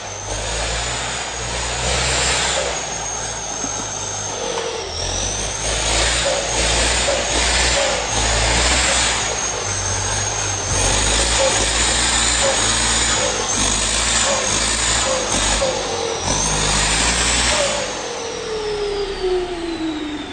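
Tata Indigo engine being revved in repeated bursts, its turbocharger giving a high whistle that rises and dips with the revs. Near the end the throttle is let off and the whistle glides steadily down as the turbo spools down.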